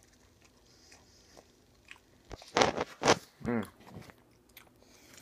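Someone bites into a crunchy cherry taquito: two loud crunches about two and a half and three seconds in, then a short hum. Small clicks and rustles come before the bites.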